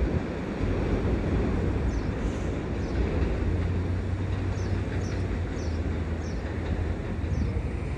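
New York City subway train running through the station, a steady rumble of the cars on the track.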